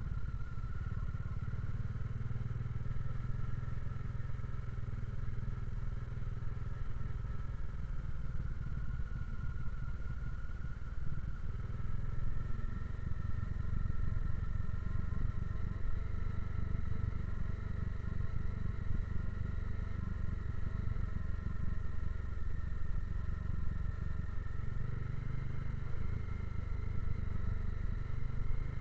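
Motorcycle engine running steadily while the bike is ridden slowly over a rough dirt road.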